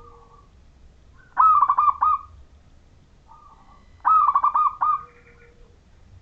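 Zebra dove (perkutut) cooing: two loud phrases, each a quick run of looping notes, about a second in and again about four seconds in, with fainter short coos between them.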